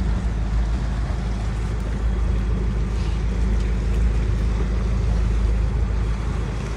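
A sailing yacht's auxiliary engine running steadily at low speed under way, with a wash of wind and water noise over it.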